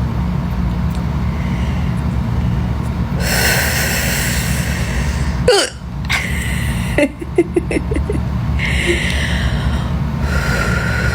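A person hiccuping: one sharp, voiced hiccup about five and a half seconds in, then a quick run of smaller catches around seven seconds in, with breaths in between. A steady low hum runs underneath.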